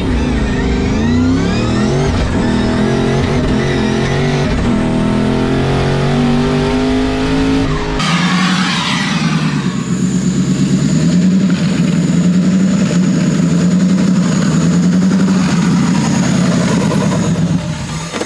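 Twin-turbo, manual-swapped Crown Victoria under hard acceleration: the engine pitch climbs and drops back several times as it goes through the gears. About eight seconds in the note falls abruptly with a brief hiss, and the engine then runs on at a steady lower speed with a thin high whine above it.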